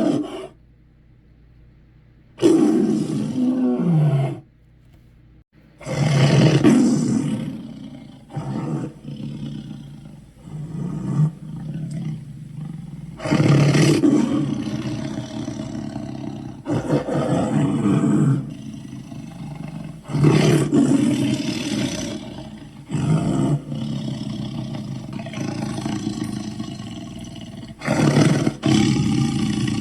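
A St Bernard dog's deep, monster-like growls in a string of loud bursts, each lasting one to three seconds and some falling in pitch. The growls begin about two seconds in and keep coming, one after another, to the end.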